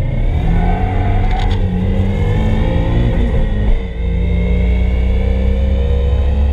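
Turbocharged SR20DET four-cylinder in a Nissan 240SX pulling hard on track, heard from inside the cabin. A short hiss comes about a second and a half in, and the engine note drops briefly about four seconds in, like a gear change, then carries on under load.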